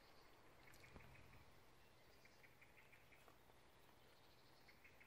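Near silence: faint outdoor background hiss, with a few faint short high ticks in small clusters, once about a second and a half in and again near the end.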